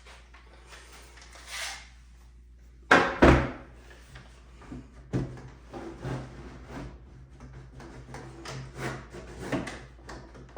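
Knocks and clatter of clamps and wooden drawer-box parts being handled on a workbench, with two loud knocks about three seconds in, then a string of lighter knocks.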